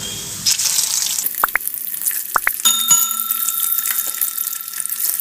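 Slices of boiled egg sizzling as they go into hot oil in an iron kadai, crackling steadily from about half a second in. A few short rising chirps and then a held bell-like ringing tone sound over the sizzle from about halfway.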